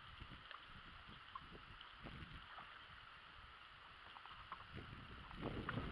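Faint water lapping around a small aluminium fishing boat, with a few light ticks scattered through and a brief louder rustle near the end.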